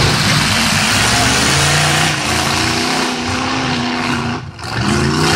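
Engines of several full-size demolition derby cars revving hard, with a rising rev about two to four seconds in. The noise dips briefly about four and a half seconds in, then comes back.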